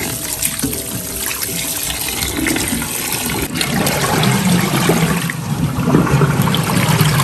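Tap water running and splashing over blanched pig's trotters as they are rinsed clean of the scum from blanching.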